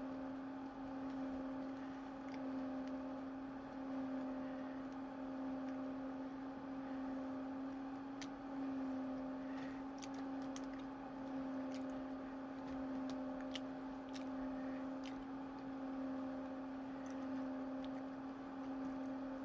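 A steady electrical or mechanical hum at one low pitch. About halfway through come a few seconds of faint scattered clicks and crunches.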